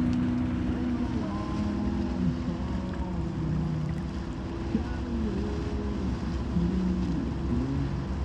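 Boat motor running steadily at trolling speed, with a low tone that holds and then shifts pitch every second or so, and wind on the microphone.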